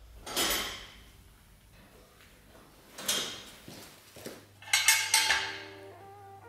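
Sharp metallic clanks and clinks from tools working on a moped's metal parts, a few seconds apart, the loudest cluster about five seconds in. Music notes come in near the end.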